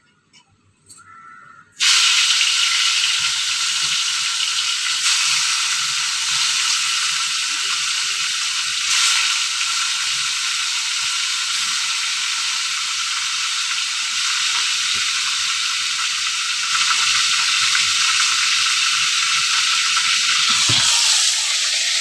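Fish pieces shallow-frying in a little hot oil in a pan, sizzling loudly and steadily. The sizzle starts suddenly about two seconds in.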